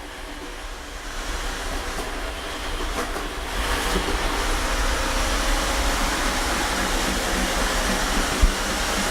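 iLife A4s robot vacuum cleaner running, a steady whirring hum of its suction fan and brushes. It grows louder over the first few seconds as the robot comes closer, then holds steady.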